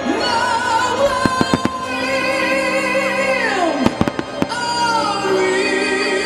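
Fireworks shells bursting over loud music with singing: a cluster of sharp bangs about a second and a half in and another near the four-second mark, with sustained melodic notes and sliding phrases running underneath.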